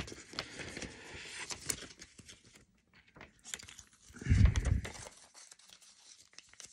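Crinkling and rustling of a paper instruction leaflet being handled, with scattered small clicks. A short low rumble of handling noise on the hand-held phone comes about four seconds in.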